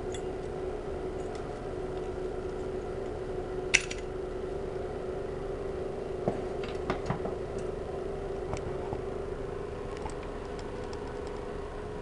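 Scattered light plastic clicks and knocks as a stock CPU cooler fan is handled and taken off its finned heatsink, with one sharper click about four seconds in and a small cluster a few seconds later, over a steady low background hum.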